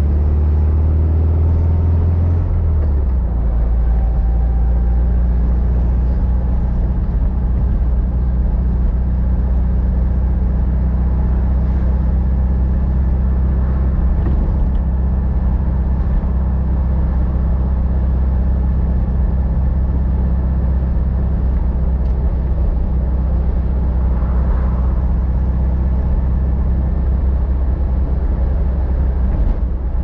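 1954 Volkswagen Beetle's 36 hp air-cooled flat-four engine running under way. The engine note drops a little about two to three seconds in, then holds steady.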